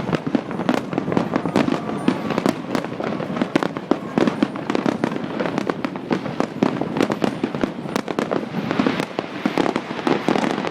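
Large fireworks display: a dense, continuous barrage of bangs and crackles, many a second.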